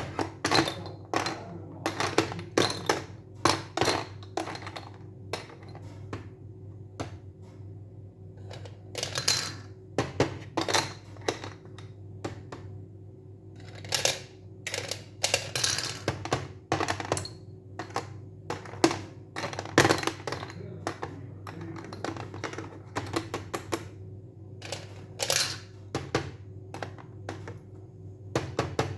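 Irregular clicking and tapping of small hard objects, sometimes in quick clusters, over a steady low hum.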